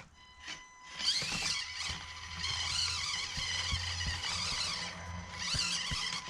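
Axial SCX24 Deadbolt 1/24-scale RC crawler's small brushed electric motor and gear drivetrain whining as it is driven, the pitch wavering with the throttle. The whine starts about a second in, runs for about four seconds, stops, and comes back briefly near the end.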